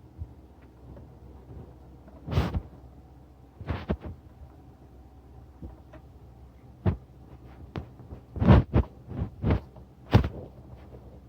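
Hand tools working in a truck's engine bay as a 10mm wrench snugs nuts down: a string of short, irregular knocks and clacks, coming quicker in the last few seconds.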